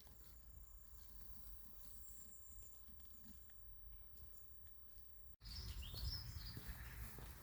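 Faint outdoor birdsong: small birds giving thin, high chirps over a low rumble. About five seconds in, the sound cuts off abruptly, then comes back with a louder low rumble and a clearer rising-and-falling bird call.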